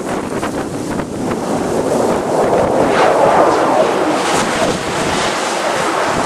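Jet engines of a Boeing 777-300 airliner passing close by the runway end, a loud roar that swells to its loudest about halfway through and then eases slightly.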